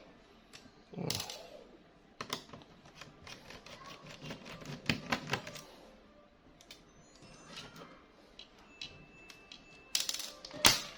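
Irregular small clicks and taps of a screwdriver and loose screws being handled on a laptop's plastic case during disassembly, with a sharper clatter near the end.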